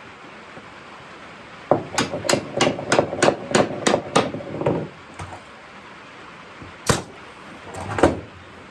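Hammer blows: a quick run of about eight strikes, roughly three a second, lasting about three seconds, then two single strikes near the end.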